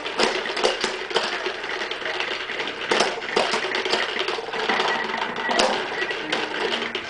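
A plastic toy clicking and clattering irregularly as a small child handles it and works at its push button.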